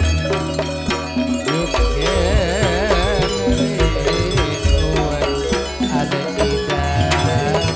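Traditional folk music playing: a melody with a strongly wavering pitch about two seconds in, over a low bass and steady percussion strikes.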